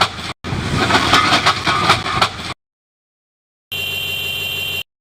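A Caterpillar 325D FM forestry machine working: its diesel engine runs under load with many sharp knocks. It cuts off abruptly about halfway. After a second of silence, a shorter steady stretch of the machine with a high whine follows.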